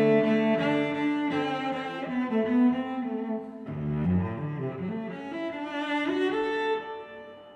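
Background music played on bowed strings, cello-like, with several held notes sounding together and changing, fading out near the end.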